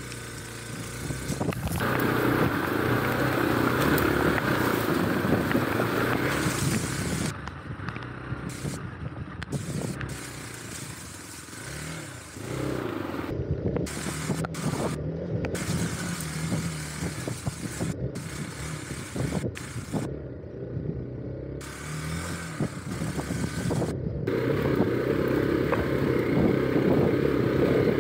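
Hero Xpulse 200 4V's single-cylinder engine running as the bike is ridden over a rough, muddy trail, heard from the rider's seat. The engine note rises and falls with the throttle. It is louder from about two to seven seconds in and again near the end.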